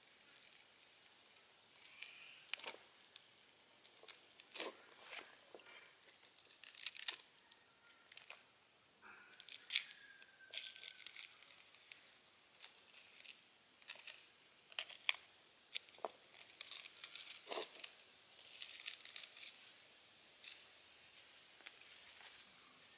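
A wooden stick scraping and prodding crisp-edged fried eggs in a frying pan: irregular scrapes and crunches as the browned egg breaks up, with a few sharp clicks of the stick against the pan, the loudest about fifteen seconds in.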